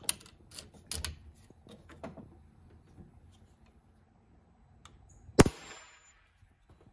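A single shot from a custom Umarex Notos PCP air rifle about five seconds in: a sharp crack with a brief ringing tail, from a shot of a little over 35 foot-pounds. Before it come a few soft handling clicks.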